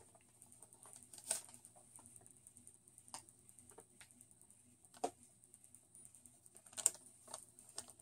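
Faint handling noise of a paper receipt and plastic product packaging: scattered light rustles and clicks, with a few sharper ones about one, three, five and seven seconds in.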